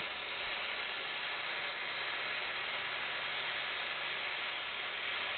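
MAP gas torch flame burning with a steady hiss as it heats a copper pipe fitting for sweat soldering.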